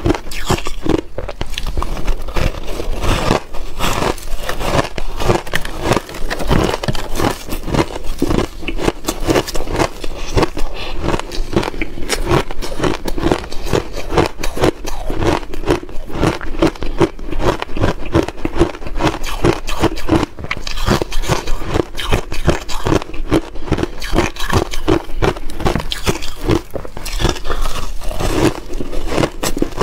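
Close-miked chewing and crunching of reshaped ice, compacted shaved ice dusted with matcha powder, breaking into powdery, slushy bits. The crunches come in a quick, continuous crackle throughout.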